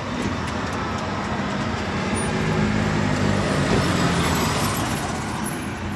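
Engine of a heavy motor vehicle running as a steady hum that grows a little louder toward the middle and fades again.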